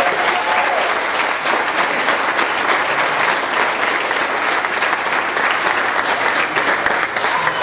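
A small crowd clapping steadily.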